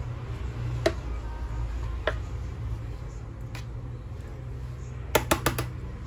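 Metal spoon clinking and scraping against an aluminium baking pan while spreading sauce: a few single clicks, then a quick run of four near the end, over a steady low hum.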